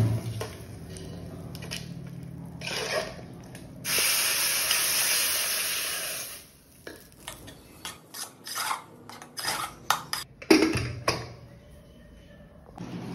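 Spoon stirring and scraping inside an aluminium pressure cooker, then a steady hiss for about two seconds in the middle, followed by a quick run of metal clinks and knocks as the cooker's lid is put in and fitted.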